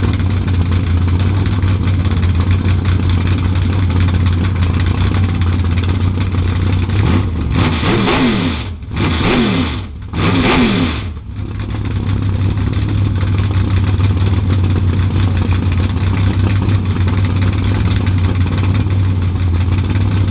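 Small-block Chevy V8 of a dirt-track modified race car running at a steady idle, blipped three times between about seven and eleven seconds in, each rev rising and falling before it settles back to idle.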